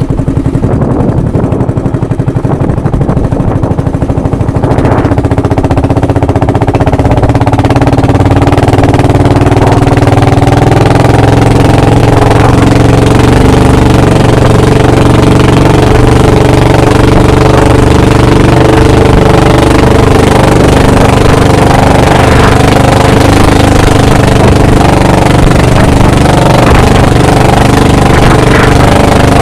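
Small engine running loud and steady, picking up speed about five seconds in and then holding an even pitch.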